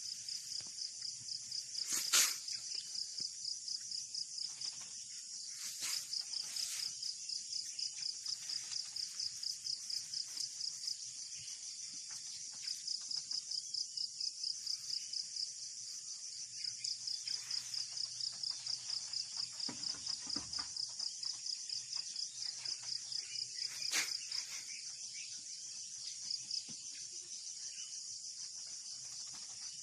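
Insects, crickets or cicadas, chirping in a fast, high pulsing trill that runs in phrases of several seconds with short breaks. A few sharp clicks stand out, the loudest about two seconds in.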